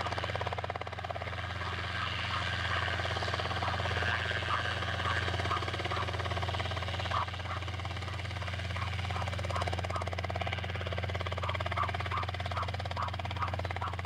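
Light training helicopter hovering close to the ground, its rotor and engine making a steady drone with a fine, even beat.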